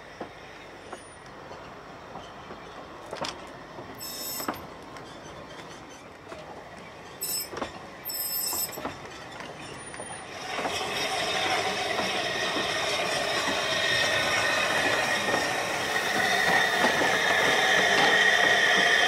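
Narrow-gauge railway carriages being shunted slowly through station sidings: wheels clicking over rail joints and points, with short high wheel-flange squeals about four seconds in and again around eight seconds. From about halfway it grows louder and steady, a continuous wheel squeal with steam hiss as the hauling steam locomotive draws close.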